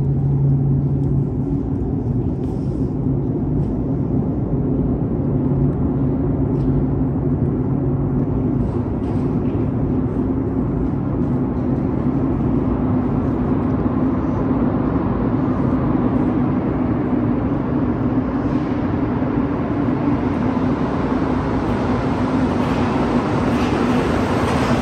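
Steady low rumble and hum on a metro platform as a rubber-tyred Montreal Metro Azur train approaches. Its rushing noise builds over the last several seconds as it pulls into the station.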